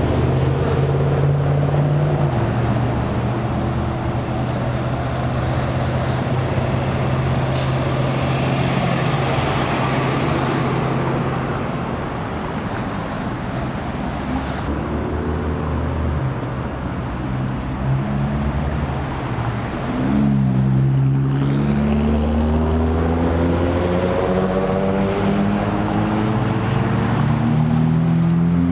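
Heavy vehicle engines running steadily. About twenty seconds in, the engine note wavers and then rises in pitch as one engine revs up.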